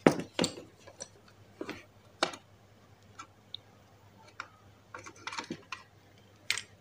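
Irregular light clicks and taps of a plastic lamp housing and its wire leads being handled against an old bicycle dynamo, about seven or eight short knocks with quiet between.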